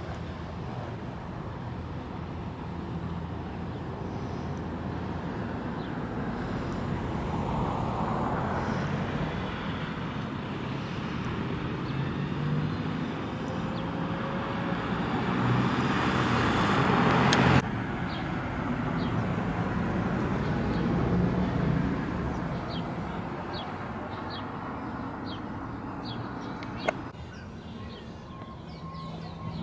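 Road traffic going by, the noise swelling and fading as vehicles pass. The loudest pass, about two-thirds of the way through, cuts off suddenly.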